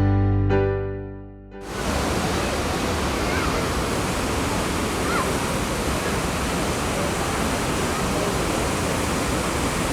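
Keyboard background music fades out, and from about two seconds in it gives way to the steady, very loud rushing roar of the Traunfall, a wide river waterfall on the Traun pouring over concrete walls.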